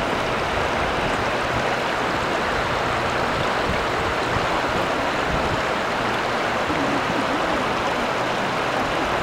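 A steady, even rushing noise with no breaks or rhythm.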